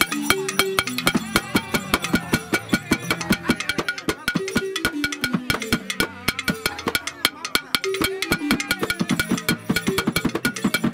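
Two Dagara gyils, wooden-keyed xylophones with gourd resonators, played together in bine funeral music: fast, dense mallet strokes with short pitched notes stepping up and down.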